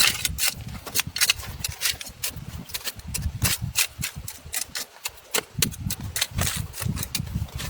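Irregular crunching and knocking: many small, sharp impacts in quick succession over dull low thuds.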